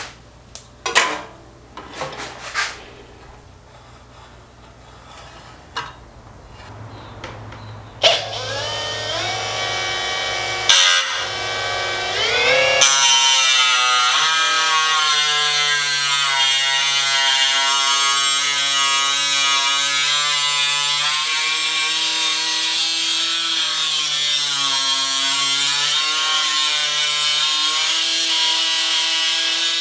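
Ryobi ONE+ HP cordless cut-off tool spinning up about eight seconds in, after a few light handling clicks. From about thirteen seconds it runs steadily, its disc cutting thin aluminium sheet with a strong high hiss. Its whine dips a little now and then under load.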